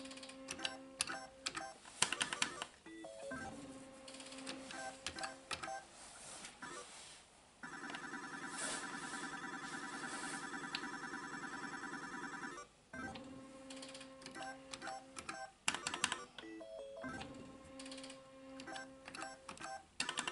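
Solex 2 pachislot machine in play: reels spinning to a steady electronic tone, with sharp clicks as the reels are stopped. About eight seconds in, a continuous, rapidly repeating electronic ringing sound runs for about five seconds while the machine pays out medals into its credit counter.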